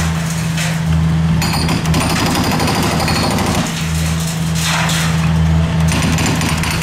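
Hydraulic breaker on a Hitachi Zaxis 55U mini excavator hammering concrete in rapid blows, over the steady hum of the excavator's diesel engine.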